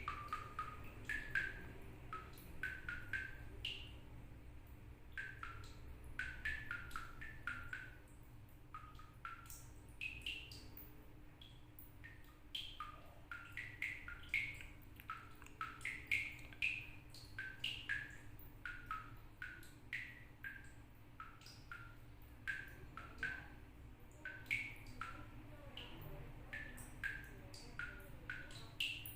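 Water dripping from a tap, each drop a short pitched plink, several a second at varying pitches in an uneven rhythm that sounds almost musical, like a drum.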